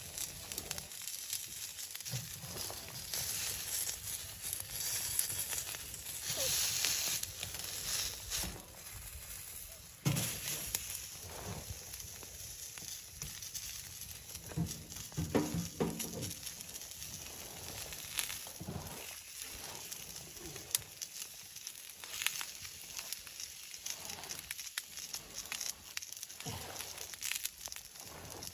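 Wood stove fire crackling with scattered sharp snaps and light rustling, and a sharp knock about ten seconds in as the hinged wire grill basket of chicken wings on the stove top is handled and turned over.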